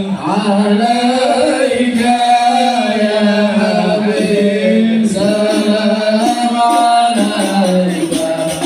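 Men singing a devotional Islamic chant of salawat in unison, in long held melodic lines, amplified over loudspeakers.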